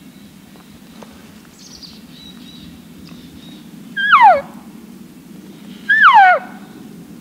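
Two elk cow calls blown on a hand call, imitating a cow elk: each a short, loud mew sliding down in pitch, about two seconds apart.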